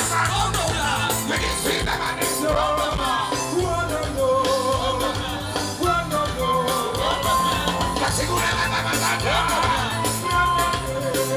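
Live band music with a male voice singing over a steady bass line.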